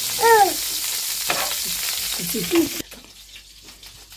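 Garlic cloves frying in butter and oil in a nonstick frying pan, sizzling steadily while a spoon stirs them; the sizzle cuts off abruptly near the end. A short falling vocal sound comes about a third of a second in.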